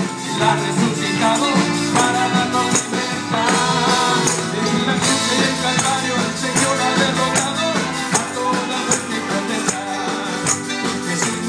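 Upbeat live band music with tambourines jingling in time with the beat.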